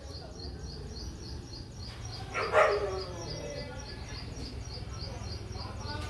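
A dog barks off-camera, a short double bark about two and a half seconds in. A high chirp repeats about four times a second throughout.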